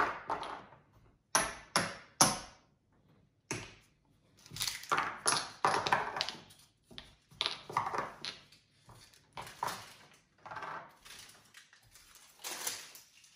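Backgammon checkers being set down on the board and stacked: a string of sharp clacks as checkers knock onto the playing surface and against each other. Around the middle there are longer stretches of rattling and sliding.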